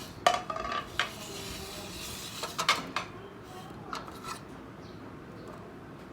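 Kitchen utensils knocking and clinking against a bowl and dishes, a handful of irregular sharp taps with short rings, while preparing to beat an egg.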